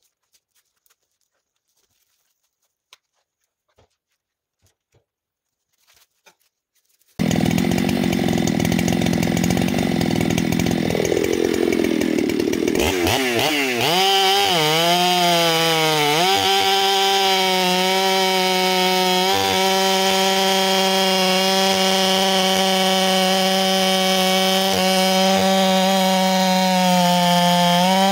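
Near silence with a few faint clicks, then about seven seconds in a Husqvarna 395 XP's 94 cc two-stroke chainsaw starts abruptly loud. Its pitch wavers up and down for a few seconds, then holds steady as it saws through a log.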